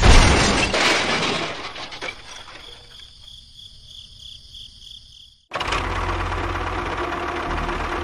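A crash and clatter of miniature clay bricks spilling as a loaded toy trolley tips over, dying away over about two seconds. About five and a half seconds in, a steady mechanical running noise starts abruptly.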